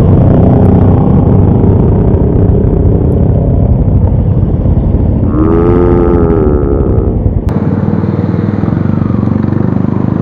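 Motorcycle engine running under way. A pitched engine or horn note rises and falls for about a second and a half in the middle, and the deep engine rumble drops off suddenly about seven and a half seconds in.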